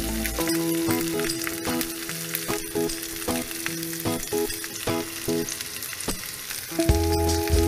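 Pork belly pieces sizzling as they fry in a hot pan, a steady hiss broken by frequent sharp pops and crackles of spitting fat.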